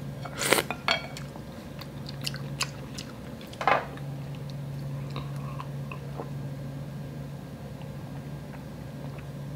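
A person slurping a sip of cold noodle soup broth from a wooden spoon about half a second in, then soft chewing and mouth noises with a few small clicks.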